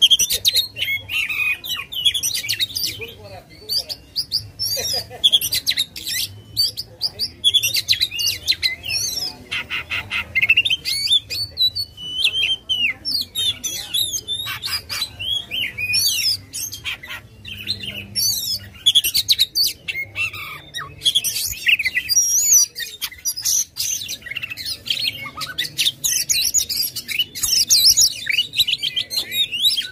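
Oriental magpie-robin (kacer) singing without a break in fast, varied phrases of whistles, trills, chattering and harsh notes: the vigorous, aggressive song that keepers call gacor.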